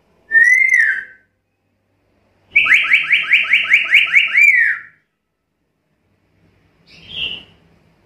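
Black-capped lory calling: one rising-then-falling whistle, then a rapid run of about ten sharp downward-sweeping whistled notes ending in a longer falling note. A short, harsher call follows near the end.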